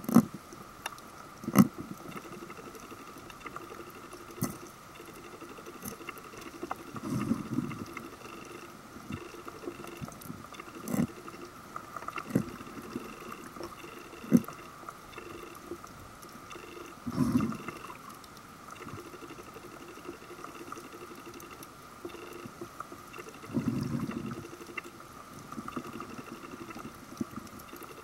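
Underwater sound: sharp clicks and cracks from a broomtail wrasse biting and crunching sea urchins, over a steady high hum. Three times, for about a second each, a scuba diver's exhaled bubbles gurgle.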